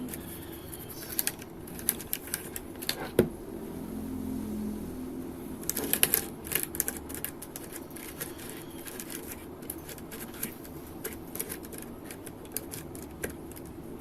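Irregular clicks and clacks from the switches of a Keychron K8 Pro mechanical keyboard, keycaps removed, as an alcohol-dampened cloth is wiped across them, with a busier run of clicks about six seconds in.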